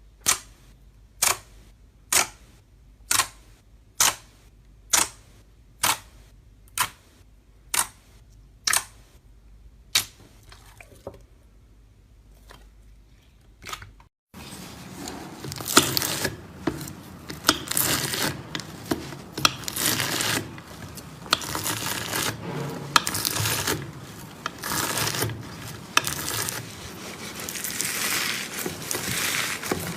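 Slime being played with: about ten sharp pops or clicks roughly a second apart, fading near the end of the run, then, after an abrupt cut about halfway, a dense run of squishing and crackling.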